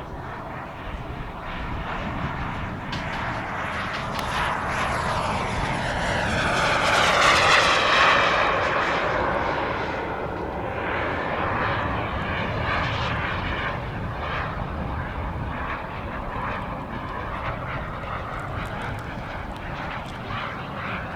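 RC model turbine jet flying past: the turbine whine and jet rush build to a peak about seven or eight seconds in, drop in pitch as it passes, then carry on more distantly.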